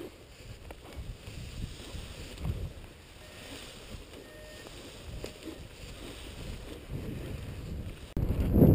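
Wind buffeting the microphone with faint rustles and small clicks, then a sudden, much louder low rumble setting in near the end.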